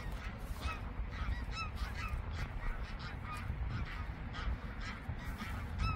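A flock of geese honking, many short calls overlapping and repeating.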